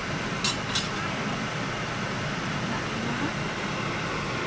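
Steady whooshing of a kitchen range hood fan running over the stove, with two quick clinks of a metal spoon against the pot about half a second in.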